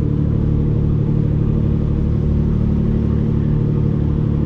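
Passenger riverboat's engine running steadily at cruising speed, a low, even drone.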